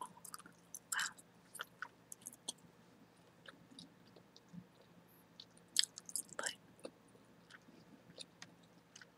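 Chewing gum close to the microphone: irregular soft wet clicks and smacks of the mouth, with a few louder snaps, one about a second in and two around six seconds in, over a faint steady low hum.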